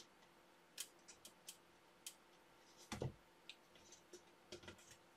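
Faint, scattered clicks and light scrapes of small screws and parts being handled against a model ship's metal side panel while screws are fiddled in by hand, with a soft knock about three seconds in.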